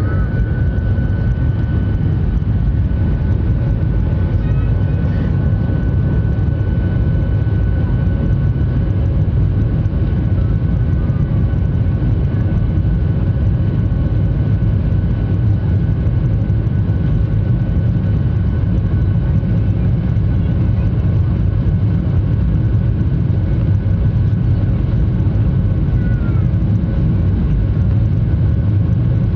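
Passenger jet airliner's engines during takeoff, heard from inside the cabin: a loud, steady low rumble with a thin steady whine above it.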